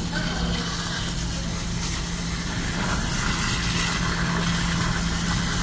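Steady hiss and splash of water spraying from a hose nozzle onto a refrigerated display case's evaporator coil and into water standing in the drain pan, whose drain is plugged with slime. A steady low hum runs underneath.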